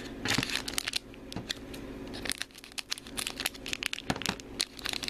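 Shiny collector-pack wrapper crinkling in the hands as it is handled and opened, a run of sharp crackles that thins out midway and picks up again near the end.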